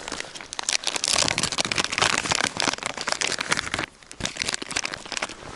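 Plastic lure packet crinkling and rustling in the hands as soft-plastic baits are taken out, a dense run of sharp crackles with a brief lull about four seconds in.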